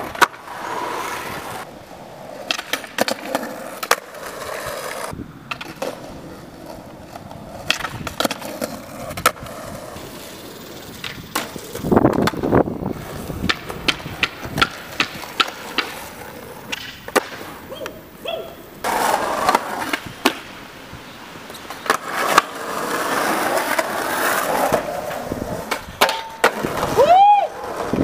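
Skateboard wheels rolling over asphalt, broken by many sharp pops and clacks as the board snaps off the tail and lands from tricks.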